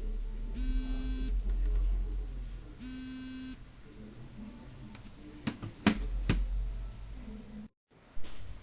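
Repeated short buzzes, each under a second and about two seconds apart, over a low hum, followed by a few sharp clicks about five to six and a half seconds in.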